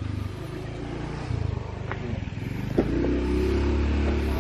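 A motorcycle engine approaching, getting louder and clearer from a little past halfway. There is a single sharp click near that point.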